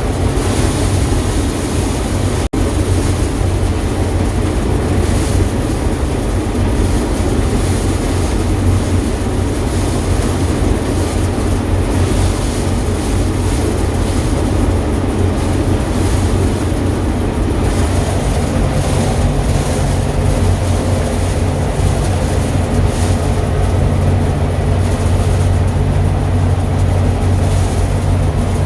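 Gleaner K combine running steadily, a constant low engine hum under machinery noise, with a momentary dropout about two and a half seconds in.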